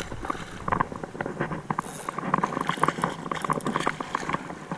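Irregular splashing and clicking of shallow creek water.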